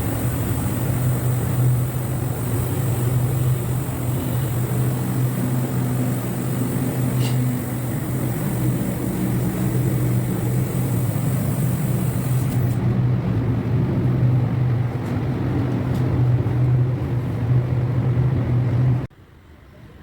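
A machine running steadily with a strong low hum, which cuts off abruptly about a second before the end.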